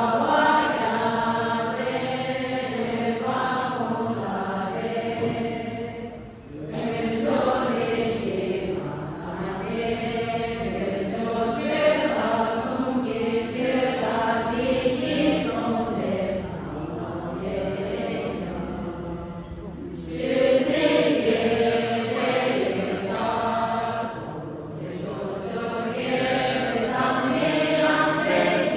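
A group of voices chanting together in unison in long continuous phrases, with a brief break about six seconds in and another about twenty seconds in.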